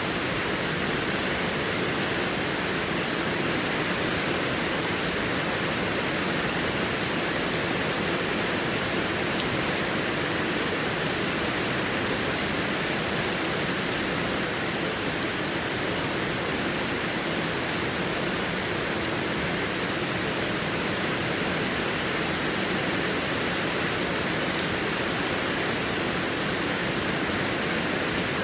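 Heavy rain falling steadily, an even, unbroken hiss of rain with no changes or breaks.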